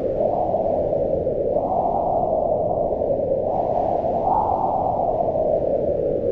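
Howling mountain wind: a steady, loud rush that swells up in pitch and falls back in slow gusts, rising twice.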